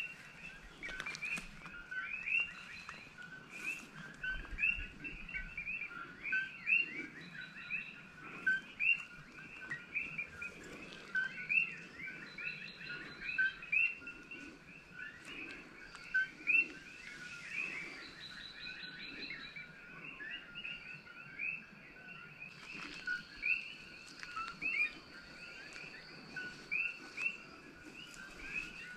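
Chorus of many coquí frogs calling their two-note "ko-KEE", each call a low note then a rising higher one. The calls overlap and repeat without a break.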